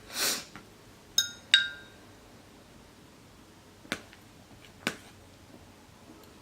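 A metal utensil clinking twice against a dish, the two ringing clinks about a third of a second apart, then two fainter taps about a second apart. A brief soft hiss comes at the very start.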